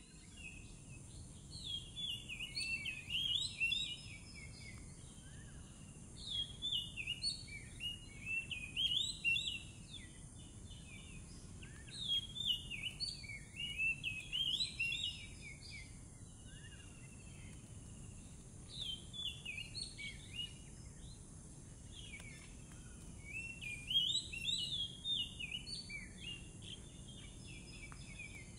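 Oriental magpie-robin singing in repeated phrases of quick, varied whistled notes, each phrase two to four seconds long with short pauses between.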